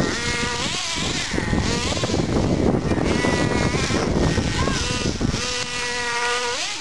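Radio-controlled car being driven, its motor whining in a pitch that rises and falls with the throttle. A dense rushing noise joins it through the middle stretch, then gives way to a steadier held whine near the end.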